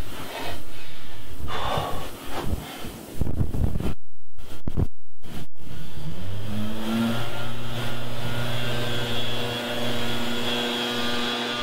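A motor running, its pitch rising about six seconds in and then holding steady as a hum. Brief cut-outs break the sound around four to five seconds in.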